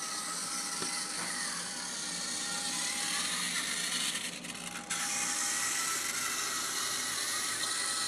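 Small electric motor of a motorized toy train engine whirring steadily as it runs along wooden track, with a brief dip about halfway through.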